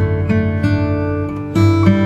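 Background music: acoustic guitar strumming and picking, a fresh chord struck every half second or so, with a louder strum near the end.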